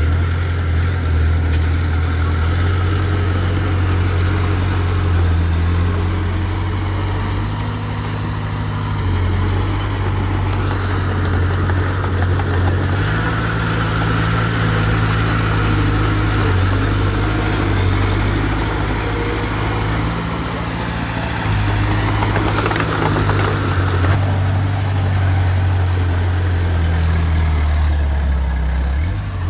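Diesel engine of heavy earthmoving equipment running steadily, its low note shifting up and down several times as the machine works.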